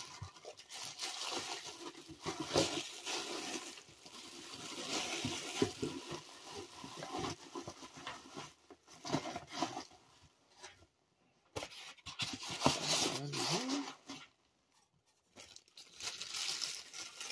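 A thin plastic bag crinkling and rustling in irregular bursts as a ceramic wax warmer is worked back into it, with two brief pauses past the middle.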